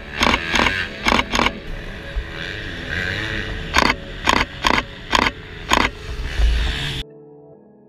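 A series of sharp single clicks, about ten in all and mostly about half a second apart, from a Nikon D3400 DSLR's shutter firing, over the steady noise of motocross bikes running on the track. The sound cuts off suddenly near the end.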